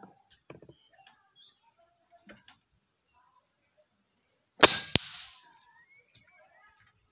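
A single shot from a PCP air rifle: one sharp, loud pneumatic crack about two-thirds of the way in, with a second sharp click a fraction of a second later.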